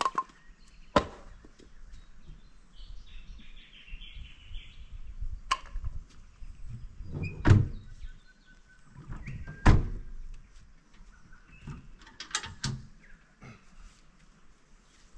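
A vehicle door and firewood being handled: a series of separate sharp knocks and thuds, the two loudest about halfway and two-thirds of the way through, with a quick cluster of knocks near the end.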